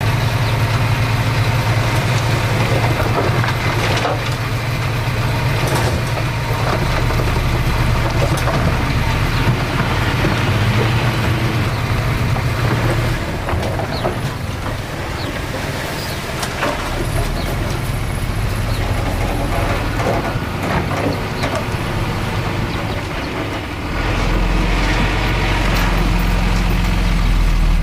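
Heavy diesel engines of dump trucks and earthmoving machinery running at a work site, with scattered knocks and clanks over the steady low hum. Near the end an engine pulls harder and grows louder.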